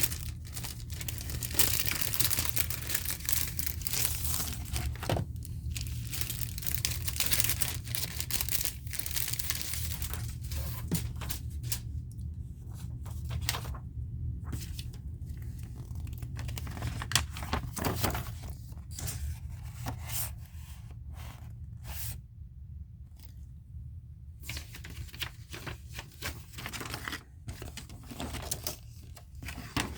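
Bubble wrap and plastic packing being unwrapped, crinkling and tearing. It is dense at first, then thins to scattered crackles and handling clicks from about halfway.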